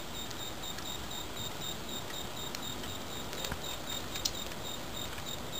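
Quiet, steady background hiss with a few faint, soft clicks spread through it, and no clear single event.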